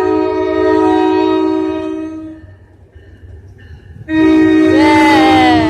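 Train's multi-tone air horn sounding two long blasts as a chord, a few seconds apart. The pitch of the second blast falls during its last second.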